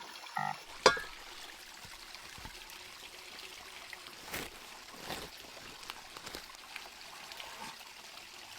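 Steady trickle of running water, with one sharp click about a second in and a few fainter clicks after.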